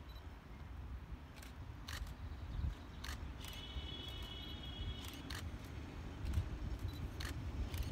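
CFL 5519 steam locomotive and its train approaching at a distance, a low rumble that slowly grows louder, with scattered sharp clicks and a brief high squeal about three and a half seconds in that lasts nearly two seconds.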